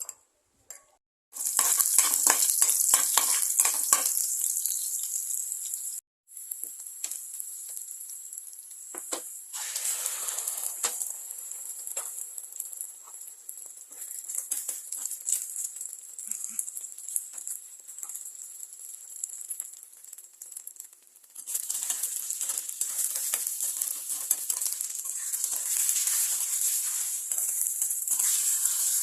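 Food sizzling in a hot pan, a steady high hiss, with a utensil clattering and scraping against the pan in quick strokes early on. The sound cuts out for a moment and comes back, and the sizzling gets louder about two-thirds of the way through.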